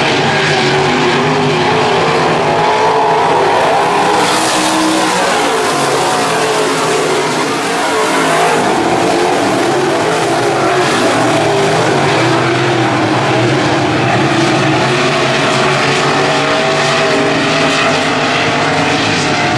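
A pack of IMCA modified dirt-track race cars running hard, their V8 engines overlapping and rising and falling in pitch as they go through the turns. Loud and continuous.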